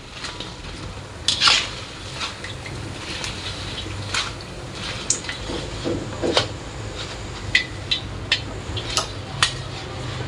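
Stainless mesh strainer scooping fried dough balls out of hot oil in a wok: the oil keeps up a steady sizzle, broken by scattered sharp clinks and scrapes of the strainer against the wok.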